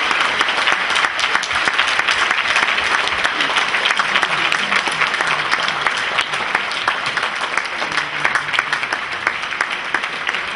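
Large concert-hall audience applauding, a dense patter of many hands clapping that eases off slightly in the second half.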